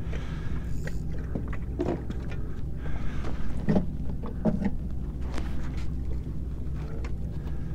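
Footsteps and scattered knocks and clunks on a fibreglass skiff's deck as gear is handled, over a steady low rumble.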